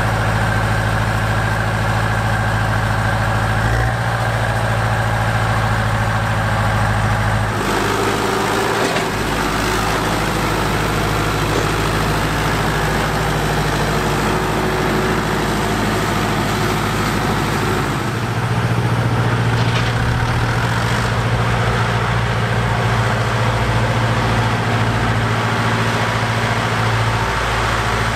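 Diesel engines of Fortschritt ZT 300 and ZT 323 tractors running steadily while pushing snow with front blades. The engine note changes abruptly about 4, 8 and 18 seconds in.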